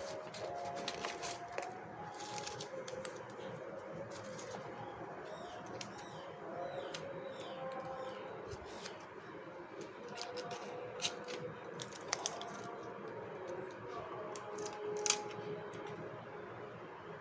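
Scattered small clicks and rustles of a plastic blind bag and its contents being handled, over a faint wavering tune.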